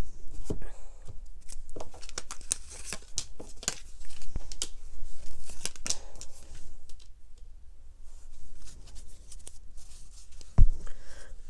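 Tarot cards being shuffled and dealt onto a satin-covered table: quick, crisp flicks and rustles of card stock, with a single low thump near the end.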